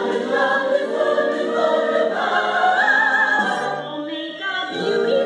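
Choir singing a sustained wordless or held-note passage of a show tune. A high voice sways with wide vibrato above the others, then the sound dips briefly and new singing comes in near the end.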